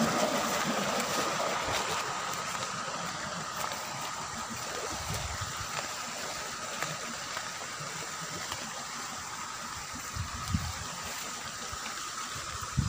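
Steady hiss of running water with a faint high steady tone, dying down from a louder splashing at the start, and a few soft low thumps of footsteps on a dirt path.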